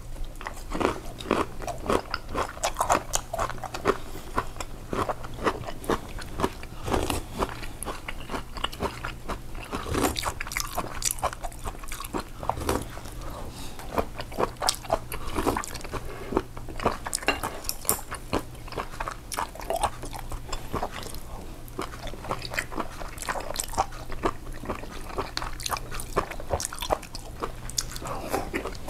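Close-miked eating sounds: biting and chewing food, with many irregular, moist crunching clicks. A low steady hum runs underneath.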